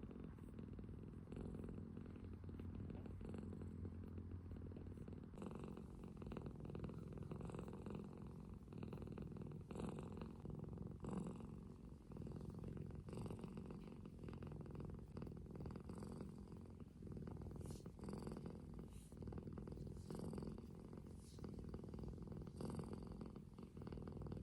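Ragdoll kitten purring steadily, with faint scattered clicks.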